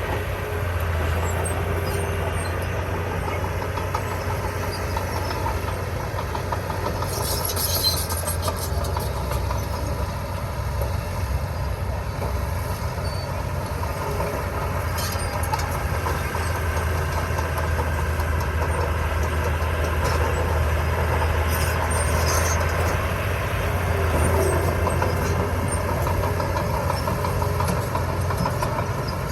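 Diesel engine of a Komatsu D20P crawler bulldozer running steadily under work, with a few brief metallic squeaks and clanks from the machinery.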